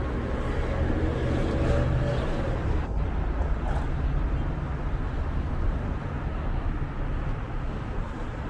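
City street traffic: a steady low rumble of car engines and tyres on the road, heaviest in the first couple of seconds as a vehicle goes by.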